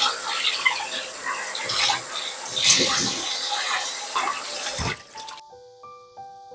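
Tap water pouring and splashing onto wet cotton dishcloths in a stainless steel colander in the sink, as hands squeeze and rinse them. The water cuts off suddenly about five seconds in, and soft piano music follows.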